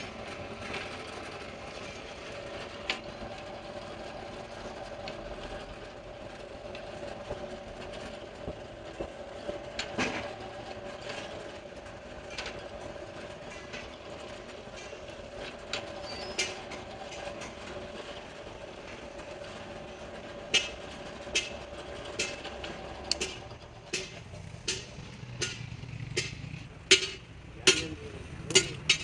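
A steady mechanical hum with a few scattered clicks. About two-thirds of the way through, sharp knocks begin at an even pace of a little more than one a second, and a low rumble comes in under them.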